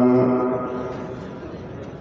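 A man's melodic Quran recitation over a microphone: the long held note ending a verse stops about a quarter of a second in, and its echo fades away.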